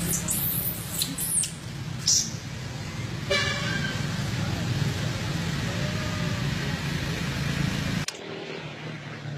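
Road traffic: a motor vehicle's engine runs with a steady low hum, a horn gives one short toot about three seconds in, and several high-pitched squeaks sound in the first two seconds. The engine hum cuts off suddenly about eight seconds in.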